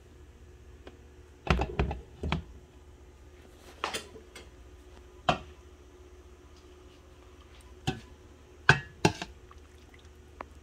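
Metal ladle stirring a stainless steel pot of soup, knocking and clinking against the pot's sides several times at irregular intervals.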